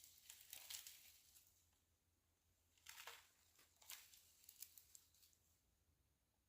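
Near silence with faint crackling rustles, once about half a second in and again from about three to five seconds in.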